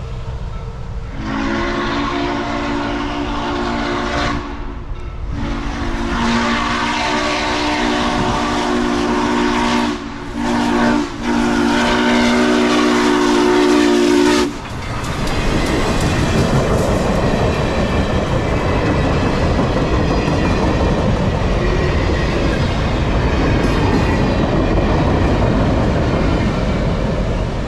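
Steam locomotive No. 148's whistle sounding a chord in the grade-crossing pattern: long, long, short, long. Then the train passes close by, its wheels rumbling and clacking over the rail joints.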